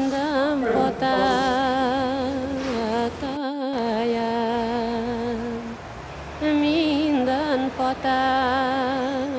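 A woman singing a slow Hungarian folk song unaccompanied: one voice holding long notes with a wide vibrato. There is a short break about three and a half seconds in, and another just past the middle.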